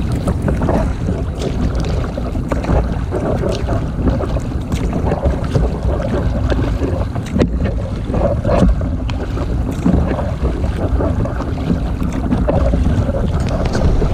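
Wind buffeting the microphone in a steady low rumble, with irregular splashes and drips of water as a double-bladed kayak paddle dips into choppy water, stroke after stroke.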